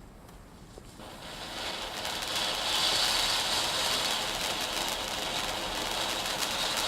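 Ground fountain firework of the low-smoke, low-noise kind catching about a second in, then spraying sparks with a steady hiss that builds up over the next second or so.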